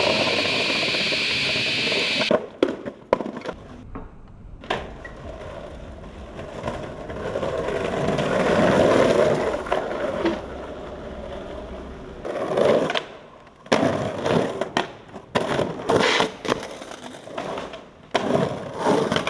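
Skateboard wheels rolling over brick paving and tarmac, the rolling swelling and fading, broken by several sharp clacks of the board popping and landing.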